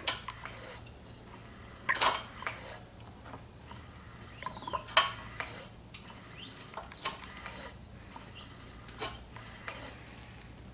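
Brake master cylinder being bench bled by pushing its piston with a screwdriver: a sharp click or clack about every two seconds as it is stroked, with faint squeaky chirps between.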